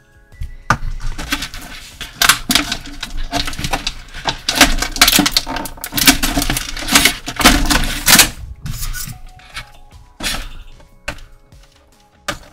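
Small plastic accessory canister being handled and opened: a dense run of plastic crackling, rustling and clicking, thinning to a few scattered clicks near the end.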